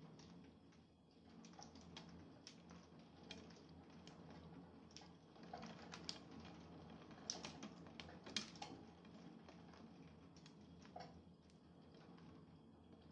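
Faint, irregular taps and ticks of raindrops striking a hard surface, with a few louder taps midway through, over a low steady hum.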